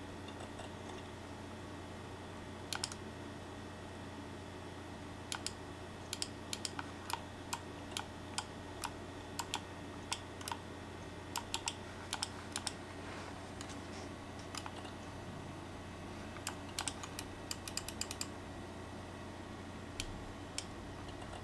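Computer keyboard being typed on: runs of key clicks with short pauses between them, over a steady low hum.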